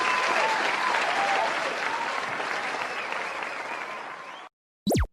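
Crowd applauding with scattered cheers and whoops, fading out over a couple of seconds and stopping about four and a half seconds in. A brief falling-pitch sound effect follows just before the end.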